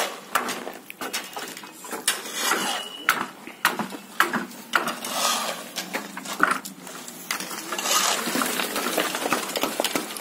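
Irregular metal clinks, knocks and scraping of shovels working wet mortar against a metal pan.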